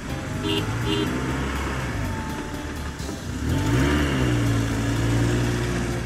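Car engine sound effect running steadily, then revving up about three and a half seconds in and holding the higher pitch. Two short beeps come near the start.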